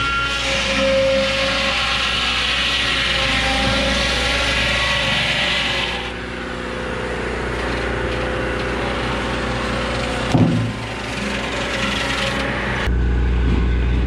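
Portable sawmill blades cutting through a cottonwood log, with a loud hissing cut over a running engine for the first six seconds, then a lower machine sound. A single sharp thump comes about ten and a half seconds in. Near the end the sound changes abruptly to a steady low engine rumble.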